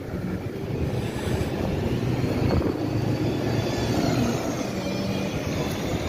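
Street traffic: a motor vehicle running close by, a steady low rumble.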